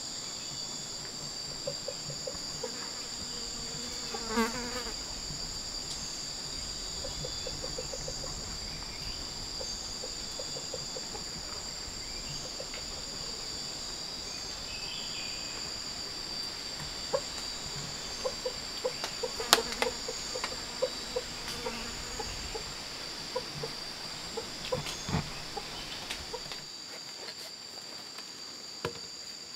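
Steady, high-pitched insect chorus of crickets or cicadas, two unbroken tones that hold throughout, with scattered light clicks and knocks, most of them in the second half.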